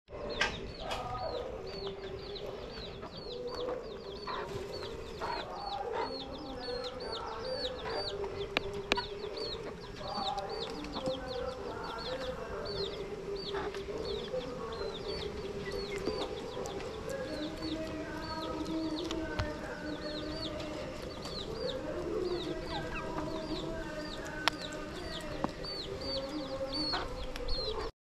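Chickens clucking continuously, while a small bird repeats a short high call about twice a second. A few sharp knocks stand out, the loudest near the end.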